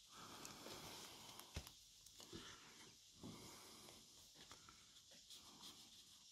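Near silence: faint room tone, with one small click about a second and a half in.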